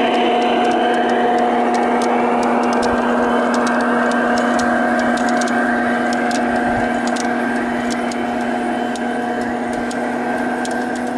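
Sound decoder (Zimo MX699 with Henning sound) of a garden-railway model of a BR 112 diesel locomotive, playing a steady diesel-engine drone through its speaker. The freight wagons' wheels click on the track, and the sound slowly fades as the train moves away.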